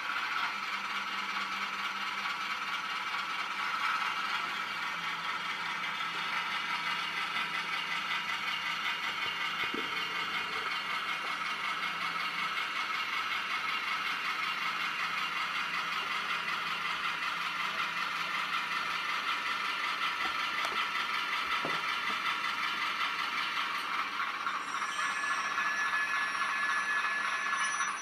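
Model diesel locomotive's sound decoder (ESU LokSound micro) playing a steady diesel engine running sound through a tiny 13 mm speaker as the Bachmann 45-tonner moves along the track. A few thin high tones join in near the end.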